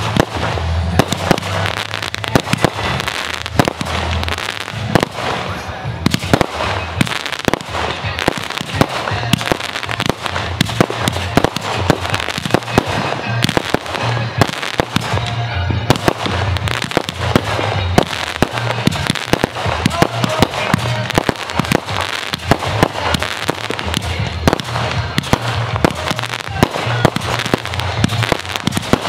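Aerial fireworks going off in a dense, unbroken barrage: many sharp bangs and crackling reports every second as shells burst and comets fire up.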